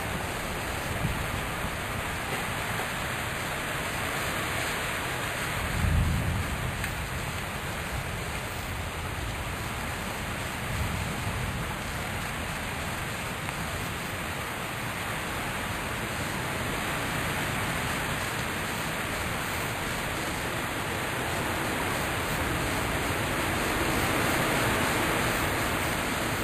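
Heavy downpour of a summer thunderstorm, a steady dense hiss of rain. A brief low thump stands out about six seconds in, and a fainter one near eleven seconds.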